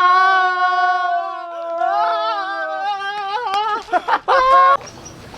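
A person's voice holding one long, high, steady note like singing, which sags slightly in pitch, then breaks into several short choppy vocal sounds about four seconds in.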